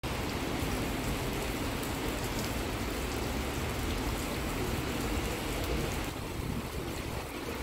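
Steady rain falling on a wet cobbled street, a dense hiss with scattered drop ticks. About six seconds in it turns a little softer and duller.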